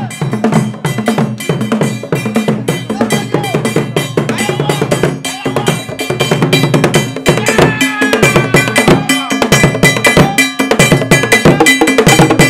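Traditional Asante hand drums played by a drumming group in a fast, steady rhythm.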